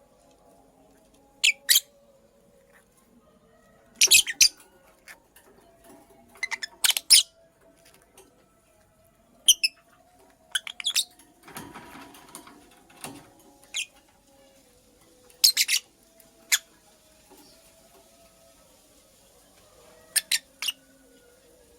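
Lovebird giving short, sharp, high-pitched chirps in quick clusters of two to four, a cluster every few seconds. A second or so of scratchy rustling comes just before the middle.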